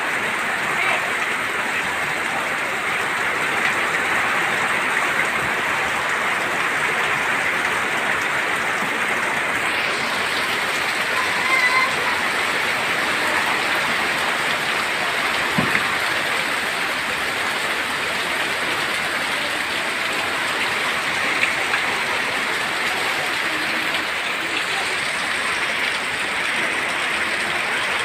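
Heavy downpour in strong wind: a steady, dense hiss of rain that holds at one level throughout, with a single sharp knock about halfway through.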